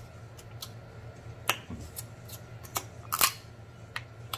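Shrimp shell being peeled by gloved fingers: a few crisp snaps and crackles, the loudest about three seconds in, over a faint low hum.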